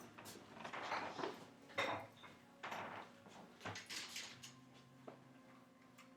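Scattered light clicks, clinks and brushing sounds of small objects being handled, with a faint low hum in the second half.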